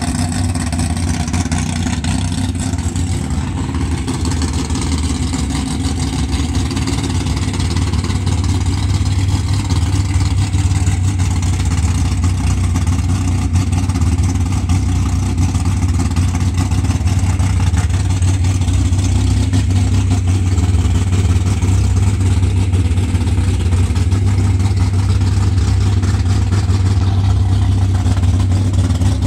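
Engine of a 1955 Chevrolet sedan delivery drag car running steadily at idle, loud and low with a rapid pulsing beat, picking up slightly about nine seconds in.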